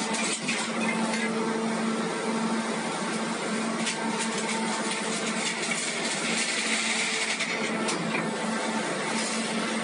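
Hydraulic power unit of a 1250-ton scrap metal shear running steadily: a constant motor-and-pump hum with a hiss over it, and a few light clicks.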